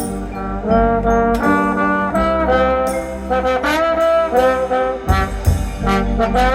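Brass ensemble with trombones and trumpets playing held chords that change every half second or so. Several low drum hits come in about five seconds in.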